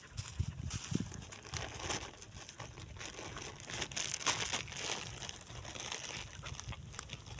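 A clear plastic bag crinkling and rustling in irregular bursts as a puppy pulls it out of a hole and noses at it on dry straw, with a couple of soft low thuds about a second in.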